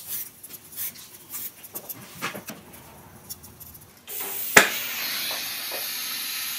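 A Scotch-Brite pad rubbing along a magnesium welding rod in faint, scattered scrapes. About four seconds in, a steady gas hiss starts, and a sharp pop follows as the oxy-hydrogen welding torch lights; the flame then hisses steadily.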